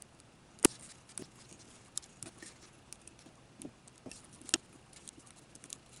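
Hand push graver cutting into a titanium knife handle: irregular small scratches and clicks as the steel point bites and slips, with a sharp click about half a second in and another near the end.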